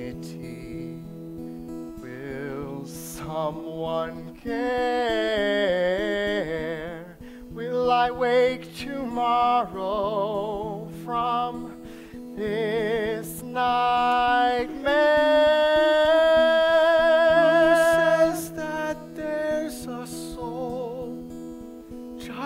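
A solo voice singing a slow song over steady guitar and band chords, with long held notes that waver, as in a live musical theatre number.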